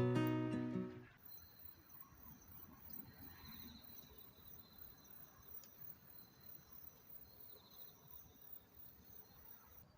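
Acoustic guitar music fading out about a second in, then faint, steady insect trilling, like crickets, with a quiet background hiss.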